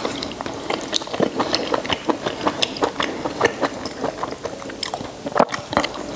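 A person chewing boiled pig intestines: a fast, irregular run of wet mouth clicks and smacks, several a second.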